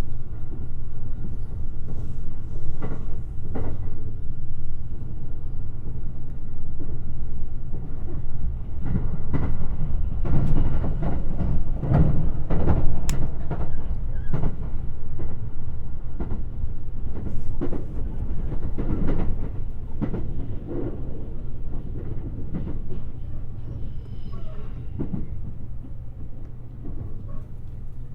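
Limited express electric train running, heard from on board: a steady low rumble of wheels on rail with irregular clicks and knocks as the wheels pass over rail joints and points. The sound grows gradually quieter over the last several seconds.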